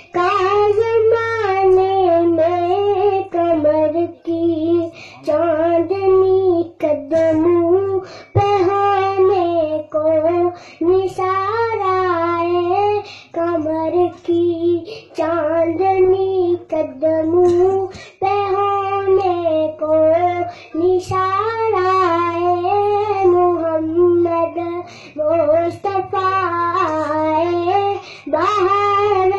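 A young boy singing a naat, a devotional poem in praise of the Prophet, solo in a high voice with wavering, ornamented melody lines and short breaks between phrases. A steady low hum runs underneath.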